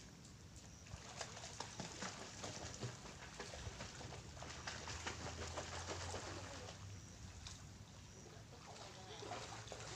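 Shallow sea water lapping and trickling against a rocky shore: a dense crackle of tiny splashes. A low hum swells from about four to seven seconds in.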